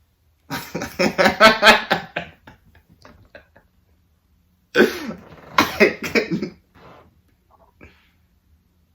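A person's voice making two short bursts of non-word vocal sounds, the first about half a second in and the second a little before halfway.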